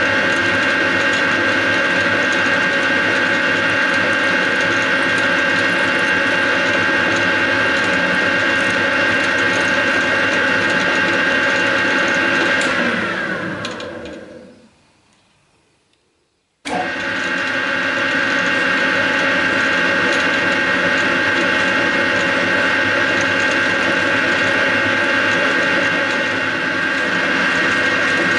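Metal lathe running steadily with a gear whine while screw-cutting a thread. About halfway through the spindle winds down, its whine falling in pitch, and coasts to a stop. After a short silence the lathe is suddenly running again at full speed.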